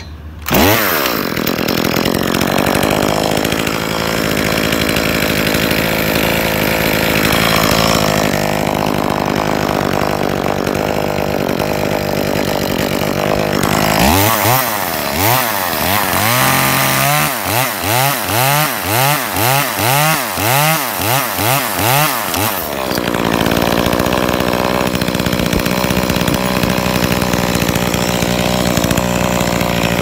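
ECHO CS-2511T top-handle two-stroke chainsaw revving up and running at high speed while cutting a cottonwood limb. Midway its revs rise and fall repeatedly, about twice a second, for several seconds, then it runs steadily at high speed again.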